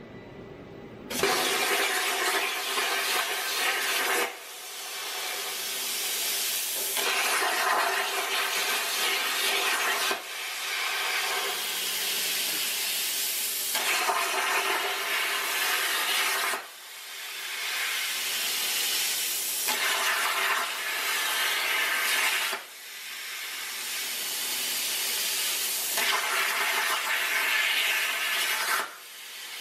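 Plasma cutter (Eastwood Versa-Cut 40) arc hissing loudly as the CNC torch cuts thin sheet steel. The hiss starts about a second in, then cuts out briefly five times and builds back up after each break.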